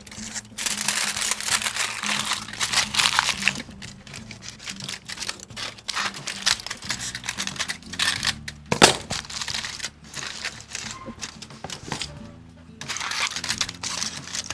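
Wrapping material being crinkled and handled in repeated rustling bursts, with one sharper crackle about nine seconds in, as containers of homemade ice cream are covered; quiet background music runs underneath.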